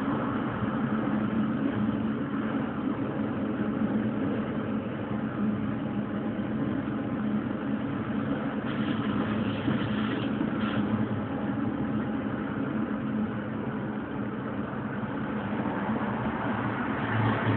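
Electric railcar running along the track, a steady motor and rolling noise heard from the front cab.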